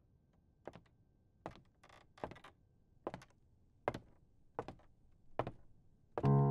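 A slow, even series of soft knocks or ticks, about one every three-quarters of a second. Music comes in just before the end.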